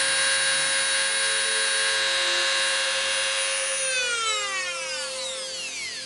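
Small high-speed rotary tool fitted with an engraving bit, running with a steady high whine, then switched off about four seconds in, its pitch falling as the motor spins down.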